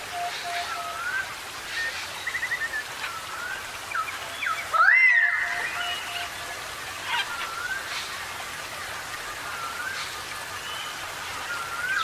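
Several wild birds calling in a forest ambience: repeated short slurred whistles, with one louder call about five seconds in that rises and then holds, over a faint steady hiss.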